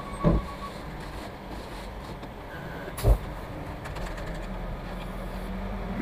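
Front-discharge concrete mixer truck's diesel engine running steadily at low speed, with a sharp knock about three seconds in.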